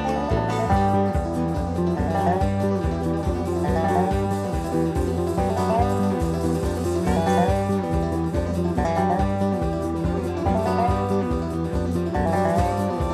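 Country-style band music led by guitar, with a steady bass beat.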